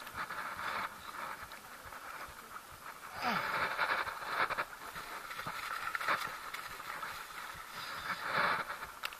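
Wind and small sea waves washing around a small boat, swelling into louder hissing surges about three seconds in and again near the end, with a few light knocks.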